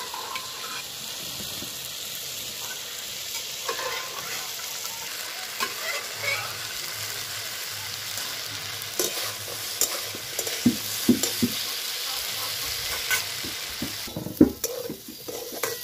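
Diced potatoes and tomatoes sizzling in oil in a metal kadai, stirred with a long steel spatula that scrapes and clinks against the pan now and then, with a sharper clink about fourteen seconds in. The potatoes are being fried until browned for a vegetable curry.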